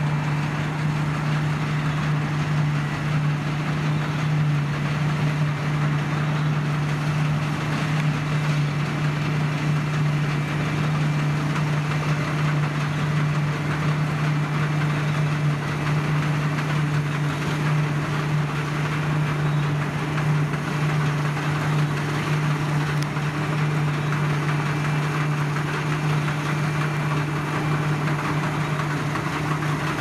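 New Holland CX 7080 combine harvester running while it cuts barley: a steady engine hum held at one even pitch, with the constant noise of the working machinery over it.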